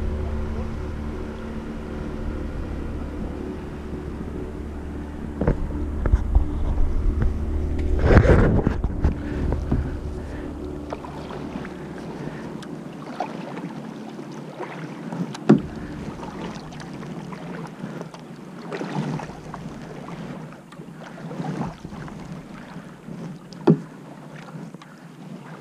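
A distant motorboat engine hums steadily and fades away over the first dozen seconds. Through it and after it come the splashes of kayak paddle strokes, with a few sharp knocks of the paddle, the loudest about eight seconds in.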